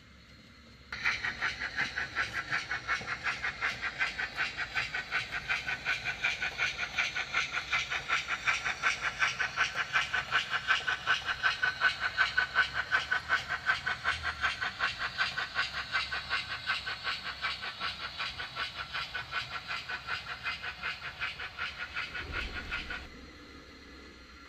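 Steam locomotive chuffing sound, an even rhythm of exhaust beats with hiss at several beats a second. It starts abruptly about a second in and cuts off abruptly near the end, with a low thump just before.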